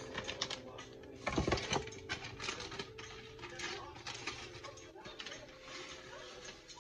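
Paper soup-mix packet crinkling and rustling as it is opened, then dry onion soup mix shaken out of it into a stainless steel stockpot, with a louder crackle about a second and a half in.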